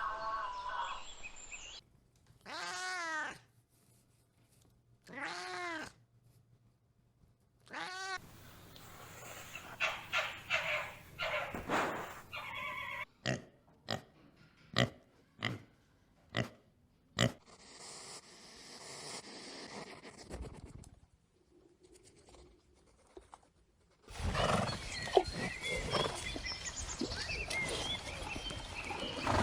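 A run of different animals' calls one after another, separated by short gaps: rising-and-falling calls repeated a few times, then a series of sharp clicks and noisier stretches.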